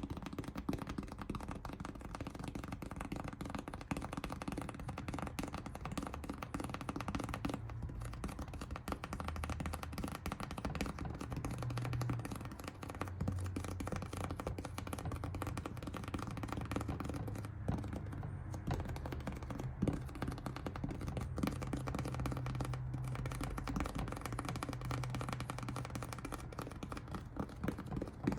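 Experimental noise music: a dense, continuous crackle of clicks and taps over low humming tones that step to new pitches every few seconds.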